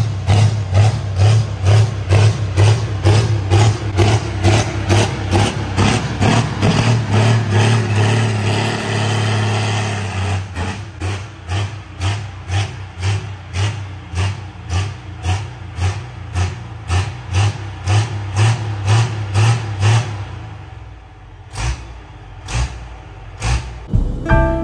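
Diesel pulling tractor's engine running, with background music with a steady beat laid over it.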